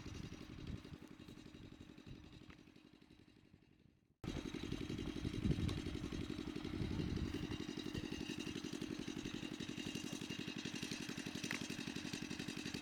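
A small engine running steadily with a rapid, even pulse. The sound fades away to silence, then cuts back in abruptly at the same level about four seconds in.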